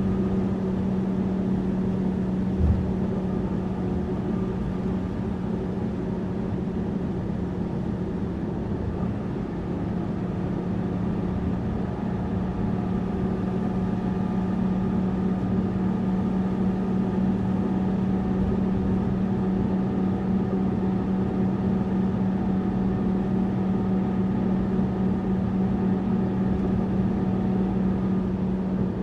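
Tourist bus engine and road noise: a steady, even drone with a low hum that holds its pitch, as at constant cruising speed. A single brief knock comes a little under 3 seconds in.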